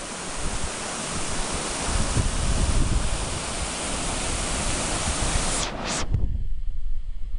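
Waterfall: a steady loud rush of falling water. About six seconds in it cuts off abruptly, leaving a low wind rumble on the microphone.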